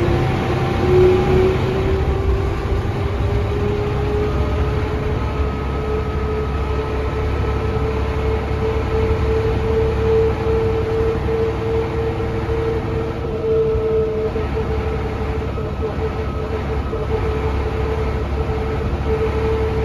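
Hub-reduction gear whine from a 1999 Mercedes-Benz O405NH bus's rear axle, heard inside the cabin over engine and road rumble. The whine rises in pitch as the bus gathers speed over the first few seconds, then holds steady at cruising speed.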